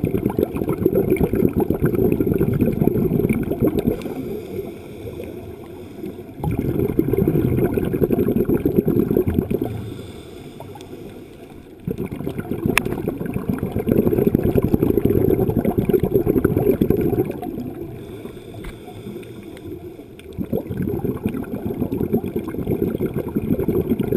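A scuba diver's regulator breathing underwater: long, deep rushes of exhaled bubbles every five or six seconds, with quieter gaps of about two seconds for the inhales between them.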